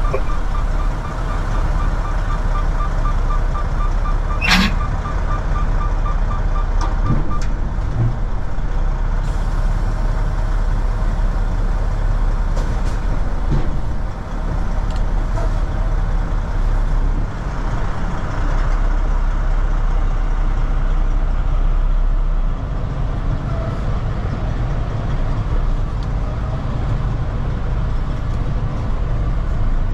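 Diesel semi-truck engine running with a low, steady rumble, while a reversing alarm beeps rapidly at one pitch until about seven and a half seconds in. There is a brief sharp sound about four and a half seconds in.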